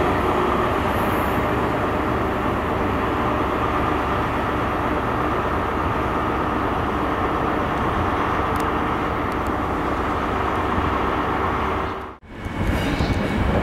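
Class 43 HST diesel train passing close by, its engine running over steady wheel and rail noise. The sound drops out for a moment near the end.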